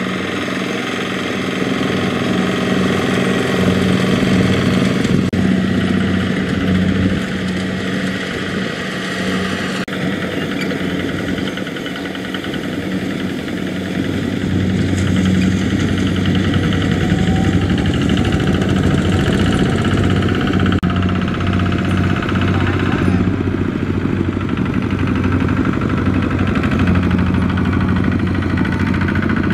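Kubota RT120 power tiller's single-cylinder diesel engine running steadily as it pulls a trailer, heard in several shots cut together, so the sound shifts abruptly a few times.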